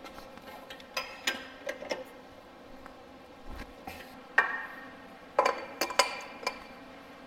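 Scattered clanks and clinks of steel on steel as the milling-machine vise handle is worked and parts are handled, then a louder cluster of clanks with a short metallic ring from about four seconds in.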